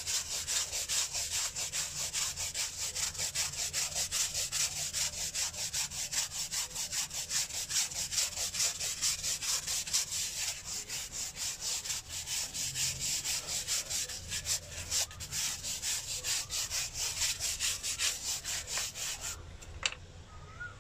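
Stiff plastic-bristle scrub brush scrubbing mold off a rough concrete surface in quick, rhythmic back-and-forth strokes, several a second. The scrubbing stops near the end, followed by a single click.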